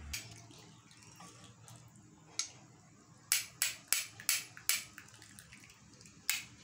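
Metal kitchen utensils clinking while hot milk kadha is strained: a couple of sharp taps, then a quick run of five about three a second, and one more near the end, over a faint pouring sound.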